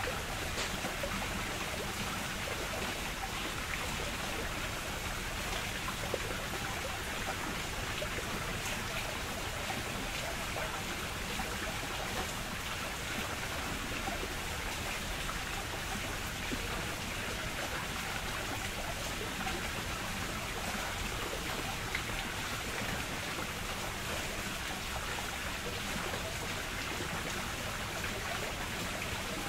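Water rushing and spattering steadily: an even hiss with a few faint ticks.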